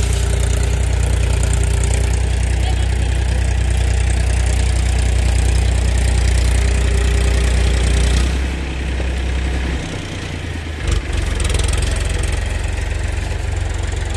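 Tractor diesel engine running steadily under load as it hauls a trolley loaded with sand. About eight seconds in the engine note drops and eases off. There is a short thump a few seconds later, then it runs on more lightly.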